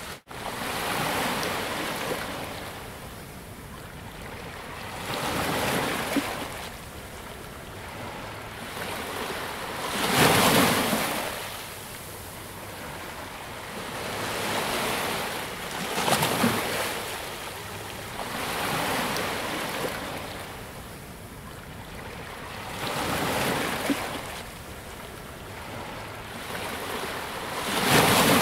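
Ocean surf: waves breaking and washing up a beach, a new one swelling up and fading away every few seconds.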